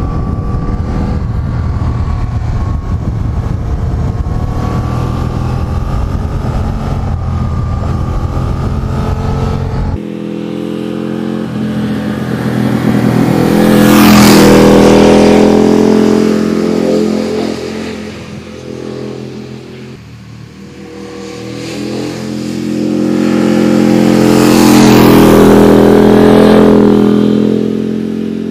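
For the first ten seconds, a motorcycle running at steady road speed, heard from onboard: a steady engine note with wind noise. Then two motorcycles, the Aprilia Tuono 1000R and Suzuki GSX1400, pass a roadside spot one after the other, about eleven seconds apart. Each engine note swells loud as it approaches and fades as it goes by.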